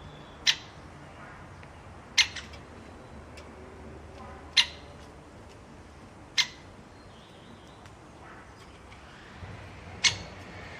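A bird repeatedly giving a short, sharp call, five times at uneven gaps of two to four seconds, over a faint steady background.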